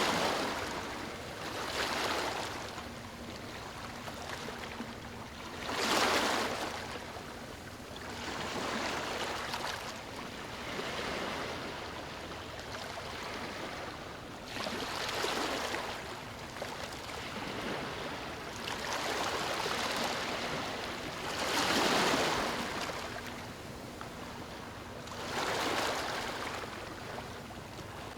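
Ocean surf washing onto a beach, a steady hiss of water that swells and fades as each wave breaks, every few seconds.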